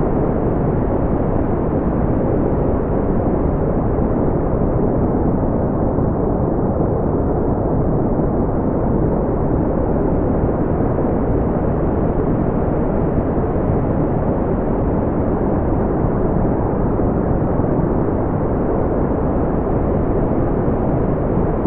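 Steady brown noise: a continuous deep rushing hiss, strongest in the low end and rolling off above the midrange, with no changes.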